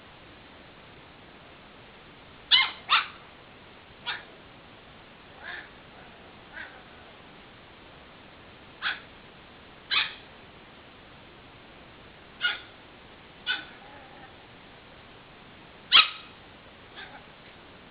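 A dog barking in single short barks, about eleven of them spaced irregularly a second or more apart, two of the loudest coming close together early on.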